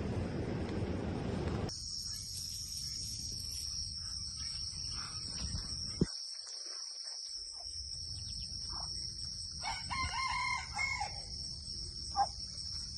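A rooster crows once, about ten seconds in, over a steady high-pitched insect drone. A few shorter bird calls come around it. Wind rumbles on the microphone for the first couple of seconds, until a cut.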